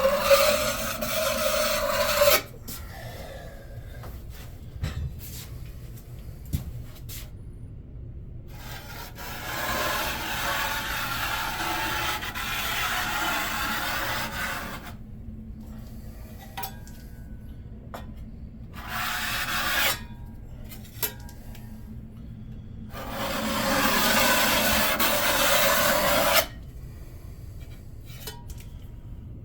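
A blade scraping and smoothing sealant over foam backer-board seams, in four separate stretches of strokes, the longest running about six seconds in the middle.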